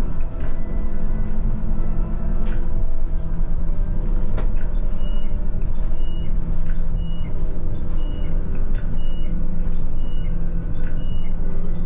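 Airport shuttle bus driving, its engine and road noise a steady hum heard from the front of the cabin, with a couple of sharp knocks or rattles in the first half. About five seconds in, a short high electronic beep starts repeating about every 0.6 s.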